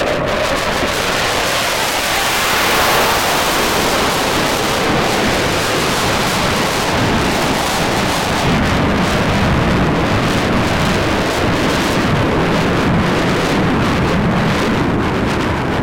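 Jet noise from a Saab JAS 39C Gripen's single Volvo RM12 afterburning turbofan as the fighter flies a display: a loud, even rushing roar that swells over the first second or two and then holds steady.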